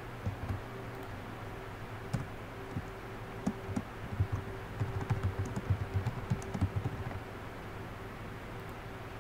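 Computer keyboard typing: a few scattered keystrokes, then a quick run of keys from about five seconds in that stops about two seconds later. A steady low hum lies underneath.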